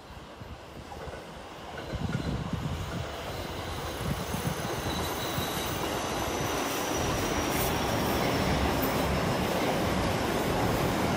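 Electric commuter train running past, its rumble and rail noise swelling about two seconds in and then holding steady, with a faint thin high whine in the middle.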